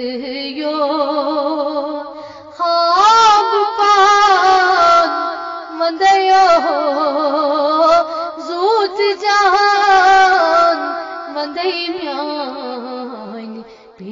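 A woman's voice singing a Kashmiri Sufi kalam solo, in long wavering, ornamented notes, growing louder about two and a half seconds in and softening near the end.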